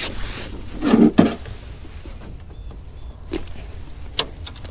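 Handling noise from landing a northern pike at the side of a small boat: two dull knocks close together about a second in, then two short sharp clicks later on.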